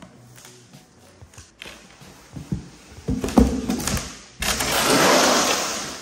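A cardboard shipping box scraping and knocking, with a cluster of thumps about three seconds in, as a plastic-wrapped subwoofer enclosure is hauled out of it. From about four and a half seconds in, the enclosure's plastic wrap crinkles loudly; this is the loudest sound, and it fades at the end.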